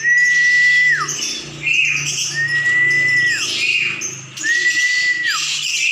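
Caged songbirds calling: a long, level whistle ending in a quick downward slur, repeated about every two seconds, over the busy chirping and chattering of many other birds.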